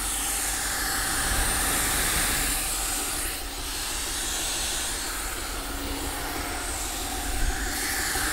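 AnkerMake M5 3D printer's cooling fans running loud and steady during a high-speed print, heard close up at the print head. A fainter stepper-motor whine rises and falls underneath as the head moves.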